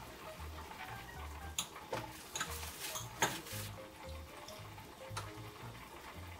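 Water poured from a small glass jug into a glass bowl of sauce, with a few sharp clicks of utensils against the glass.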